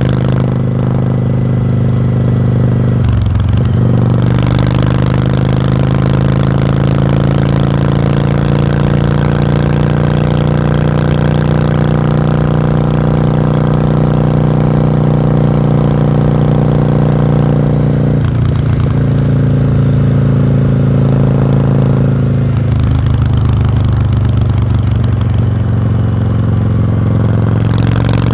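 Yamaha Virago's V-twin exhaust while riding, a loud steady note. The pitch dips briefly and recovers three times: a few seconds in, about two-thirds of the way through, and shortly after.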